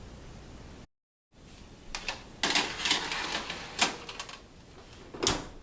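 Kitchen work clatter: a run of rapid clicks and taps, densest in the middle, with two single sharper knocks near the end.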